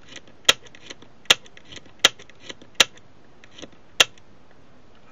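Seikosha leaf shutter of a Mamiya Sekor 65mm f/6.3 lens being cocked and fired by hand five times in quick succession, each release a sharp click, with fainter clicks of the cocking between. It is being fired again and again to check whether it sometimes fails to open.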